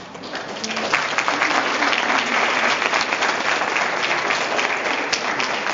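Audience applauding. The clapping builds up over the first second and then holds steady and dense.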